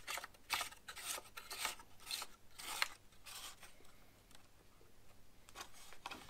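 Repeated scraping and rubbing strokes of things being handled, about two or three a second for the first three seconds, then fainter and sparser.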